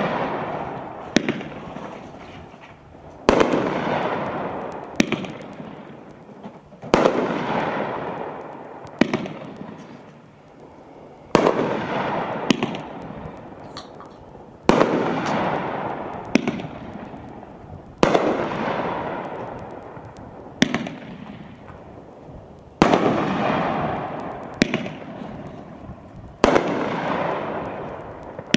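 Whoop-ass (Sizzlin Hot) 500-gram fireworks cake firing single aerial shots about every three and a half seconds, seven in all. Each shot breaks with a loud report followed by a long fading hiss and crackle from the stars. A smaller sharp crack falls between the shots.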